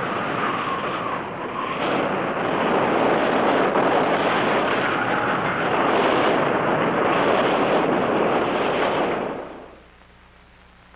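Tornado wind roaring: a loud, steady rush, with a falling tone in the first second or so. It cuts off about nine and a half seconds in, leaving only a faint low hum.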